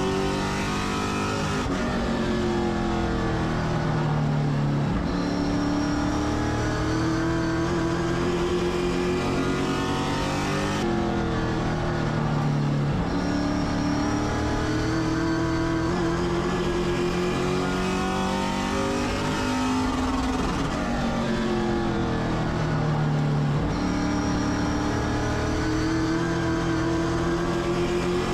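Race car engine running hard under race conditions. Its pitch climbs as the car accelerates and drops back as it slows, several times over, the rhythm of a car lapping an oval track.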